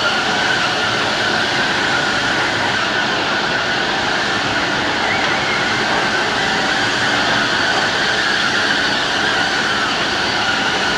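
Kiddie-car carousel running, its platform turning with a steady mechanical rumble and rolling noise.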